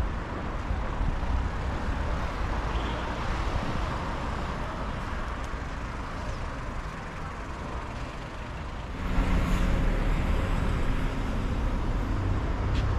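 City street traffic noise: a steady din of passing cars with a low rumble, growing louder from about nine seconds in.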